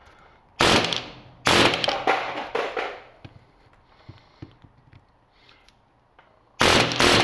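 Pneumatic air hammer with a chisel bit hammering on the welds of a transformer's steel core, in loud short bursts: three in quick succession in the first three seconds, then another near the end. The chisel is breaking the welds that hold the core together.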